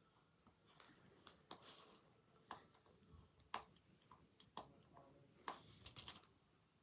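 Faint, irregular clicks and light scratches of fingernails picking and peeling at security stickers on a plastic DVD case, about ten small clicks over several seconds.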